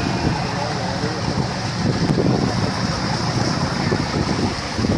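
Small motorboat under way: the engine running steadily under the rush of water along the hull and wind buffeting the microphone.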